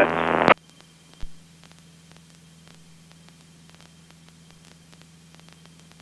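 Faint steady hiss and electrical hum on the cockpit intercom and radio audio feed, with one brief low thump about a second in.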